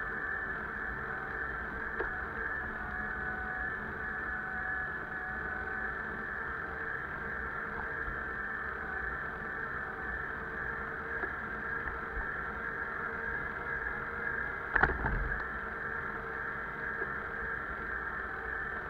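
A bicycle riding on an asphalt road: steady tyre and wind noise, with one short knock about fifteen seconds in.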